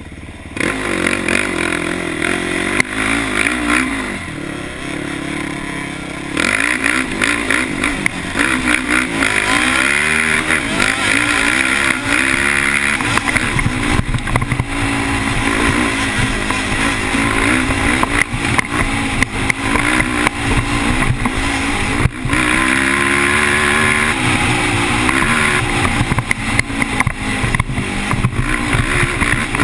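Yamaha sport ATV engine heard from the rider's seat, revving up and falling back over and over as it is ridden hard along a dirt trail, with steady wind and trail noise over the mounted camera.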